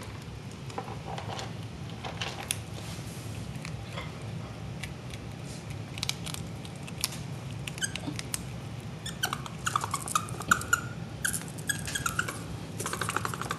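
A prairie dog crunching dry dog food, with scattered sharp clicks. From about nine seconds in it gives a quick run of short, high chittering squeaks, the agitated sound it makes just before biting.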